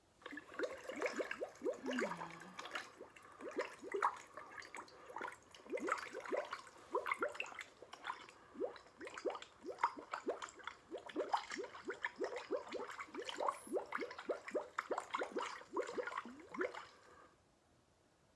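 Water bubbling and gurgling: a quick, irregular run of blub-blub bubble sounds, each a short rising blip, like bubbles being blown into water. It stops about a second before the end.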